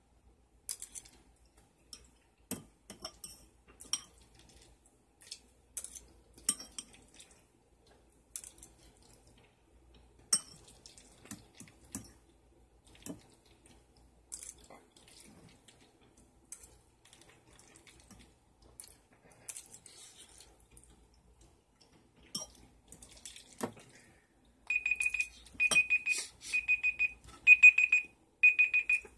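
A fork clinks and scrapes against a ceramic bowl of macaroni as it is eaten. About 25 seconds in, a timer alarm starts beeping at one high pitch, about three beeps every two seconds, and it is the loudest sound. It signals that the five-minute time limit is up.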